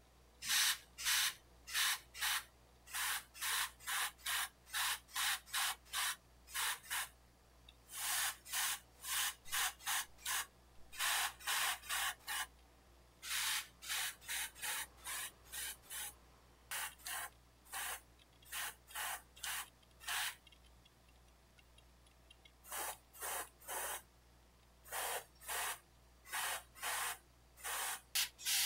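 Airbrush spraying paint in short hissing bursts, about two a second, in runs broken by pauses of a second or two, as the skin-tone coat goes on.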